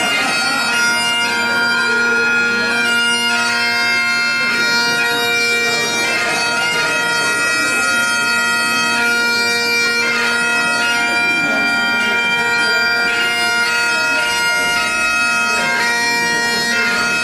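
Bagpipes playing a tune: steady drones under the chanter's melody.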